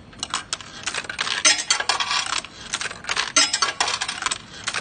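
Old 20-sen coins dropping into a CC6100 coin changer and clattering through its validator, a dense run of metallic clinks in several bursts with short gaps. The coins are fed in to calibrate the mechanism.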